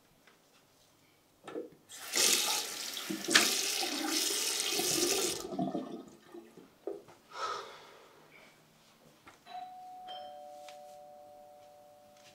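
Tap water running into a bathroom sink and splashing as someone washes their face for a few seconds. Later a two-note ding-dong doorbell rings, high then low, and the notes fade slowly.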